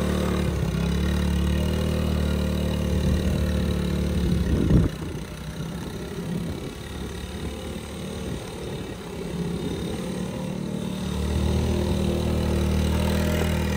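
Small single-cylinder four-stroke engine of a 1985 Honda ATC70 three-wheeler running steadily, revving briefly about five seconds in. It then drops quieter for several seconds before running steadily and louder again near the end.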